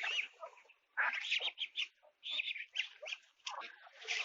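A flock of young BV-380 layer hens calling together: many short, overlapping clucks and chirps with brief gaps.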